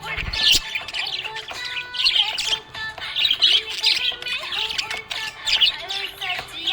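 Budgerigars chirping busily, many short rapid chirps overlapping without a break.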